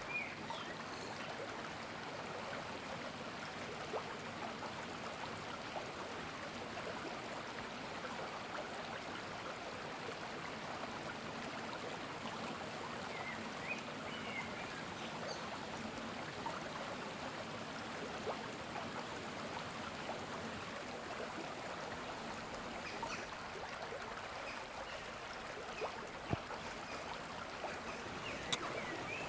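A shallow stream running steadily over rocks, with a few faint high chirps now and then and a couple of sharp clicks near the end.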